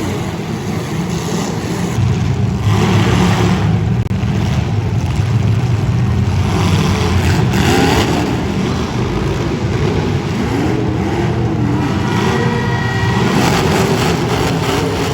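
Demolition derby cars' engines running loudly and revving, with several short bangs of cars hitting each other.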